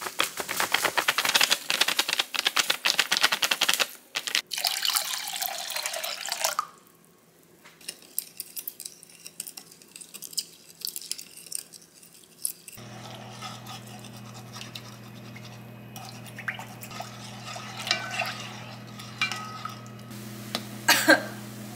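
Pickle brine stirred briskly with a silicone spatula in a glass bowl: a fast run of scraping and clinking for the first several seconds. About halfway through, a steady low hum starts from an induction cooktop heating the brine in a pot, with light stirring clicks over it.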